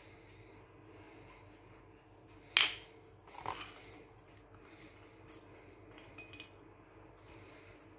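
A sharp clack as a glass high-pressure sodium lamp is set down on a tiled floor, then a softer knock a second later.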